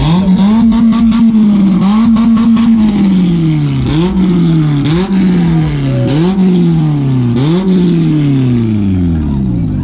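A car engine being revved hard: held at high revs twice for a second or two, then blipped four times, each rev rising quickly and sinking slowly back toward idle.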